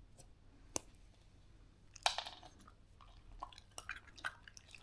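Faint, scattered clicks and crunches in a quiet room: one sharp click about a second in, a short cluster of crackles about two seconds in, and a few small ticks after that.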